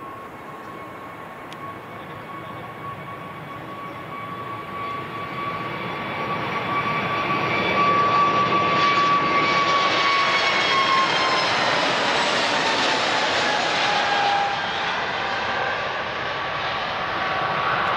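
Airbus A320neo-family jet airliner on its takeoff roll, engines at takeoff thrust. The engine noise swells for the first several seconds and then holds loud, with a high steady whine that drops in pitch from about ten seconds in as the jet passes.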